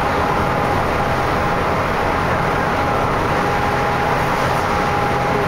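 Steady road and engine noise inside a vehicle travelling at highway speed, with a faint steady whine running through it.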